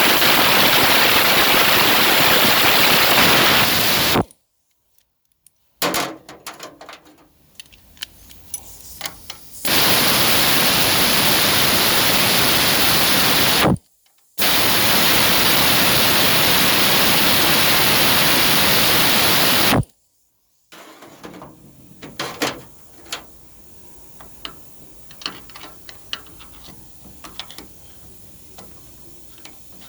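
Loud, steady rushing hiss in three long stretches, each cutting off abruptly, with light clicks and taps in the quieter stretches between and after.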